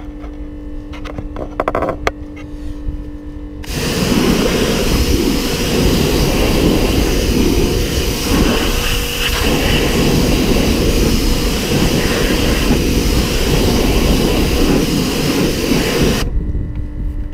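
Pressure washer jet spraying water onto an alloy wheel and tyre, a loud steady hiss that starts suddenly about four seconds in and cuts off abruptly about a second before the end.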